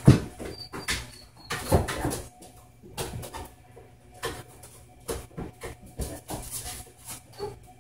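A dog's paws thumping and tapping on a treadmill deck as it steps around, with the loudest thump right at the start and scattered lighter knocks after.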